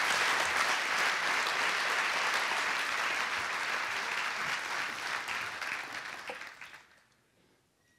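Congregation applauding, the clapping thinning out and dying away about six and a half seconds in.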